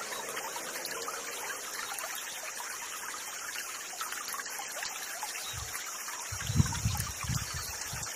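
Small stream trickling steadily in the background, with a few low rumbling bumps on the microphone about two thirds of the way through.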